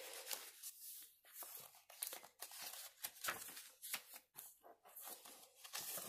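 Faint, irregular rustling and crinkling of paper and card as the pages, pocket inserts and cards of a handmade junk journal are handled and turned.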